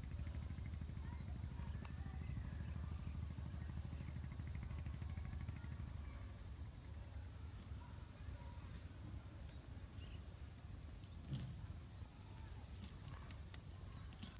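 Steady, high-pitched insect chorus droning without a break, over a low rumble that is stronger in the first half.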